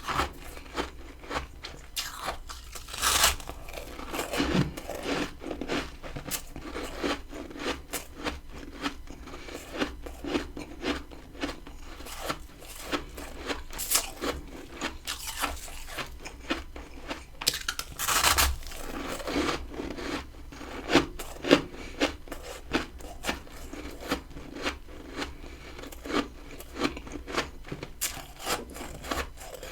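Close-miked biting and chewing of freezer frost: a steady run of crisp crunches, with two longer, louder bites about three seconds in and again a little past halfway.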